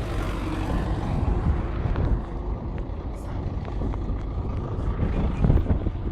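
A vehicle's engine running, a steady low rumble.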